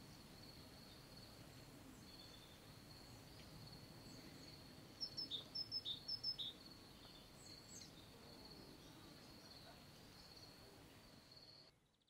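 Faint, steady room ambience with a thin high whine and a low rumble, broken about five seconds in by a quick run of about six short, high bird chirps. The sound cuts off near the end.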